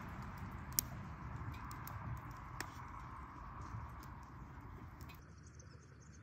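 Outdoor ambience: a steady low rush with a few scattered sharp clicks. It turns quieter and thinner about five seconds in.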